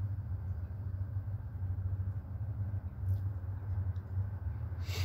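Steady low hum, with a brief rustle just before the end.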